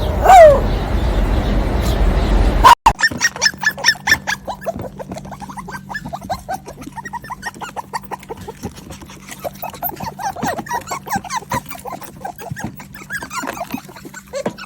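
Animal calls. A single loud, short, falling cry sounds over a rumbling background, then after an abrupt cut comes a busy run of short squeaks and chirps.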